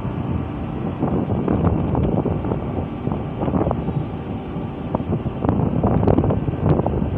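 Wind buffeting the phone's microphone: a steady, rumbling rush, with a few short clicks near the end.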